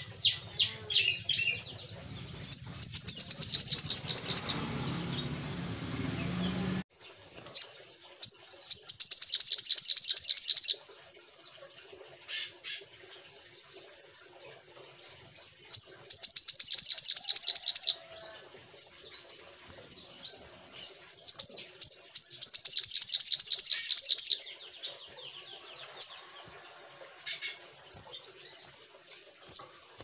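Olive-backed sunbird singing: four bursts of rapid, high trilling, each two to three seconds long, with sharp chips and short twitters between them.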